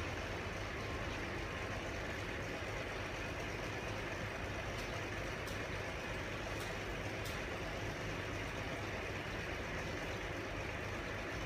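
Steady background noise with a low rumble, of the kind distant traffic makes, and four faint short ticks about halfway through.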